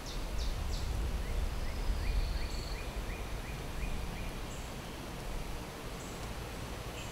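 Outdoor ambience with a bird calling: a run of short rising chirps, about two a second, over a steady low rumble.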